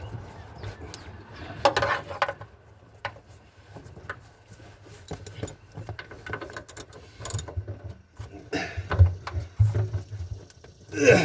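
Irregular clicks, knocks and short scrapes of hand tools and metal parts being worked on, with a louder scrape near the end.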